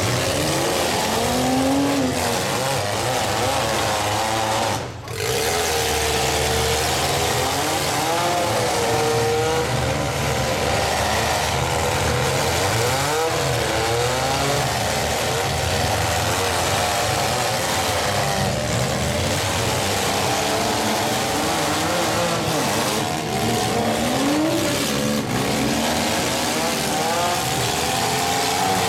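Several demolition-derby compact cars' engines revving hard at once, their pitches rising and falling over one another, with a brief drop in sound about five seconds in.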